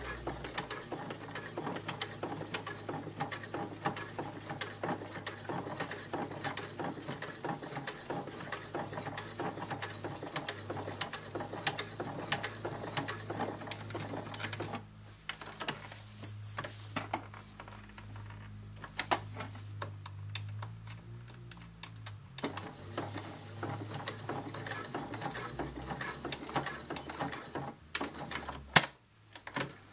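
Small electric sewing machine stitching: a fast run of needle clatter over a steady motor hum. The clatter drops away for several seconds around the middle while the hum stays, then picks up again, and a sharp click sounds near the end.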